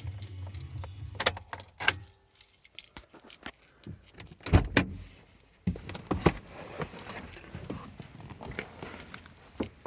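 Keys jangling with scattered clicks and rattles, and one heavy thump about four and a half seconds in. A low hum cuts off about two seconds in.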